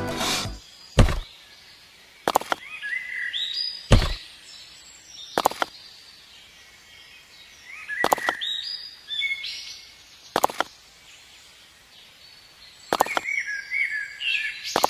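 Birds chirping in short bursts of high calls, with a sharp knock every few seconds.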